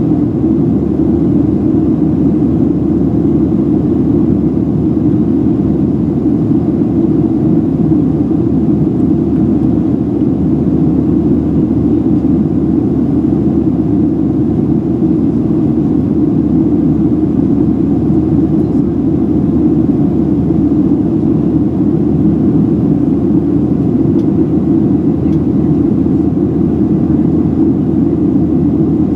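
Steady cabin roar inside a Boeing 737-700 climbing after takeoff: engine and airflow noise. It is strongest low down and holds an even level and pitch throughout.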